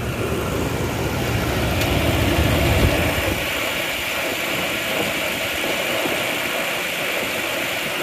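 Toyota Tundra's 5.7-litre 3UR-FE V8 idling steadily, heard close up with the hood open; the low rumble lessens about three seconds in. This engine has an intermittent clicking that is blamed on its timing chain tensioner.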